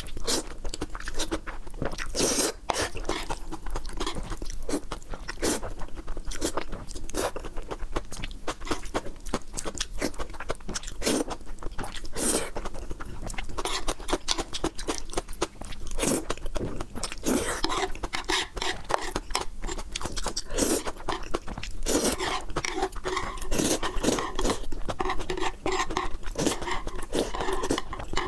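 Close-miked eating sounds of thick noodles: wet chewing and smacking with many short mouth clicks, broken by a few longer slurps.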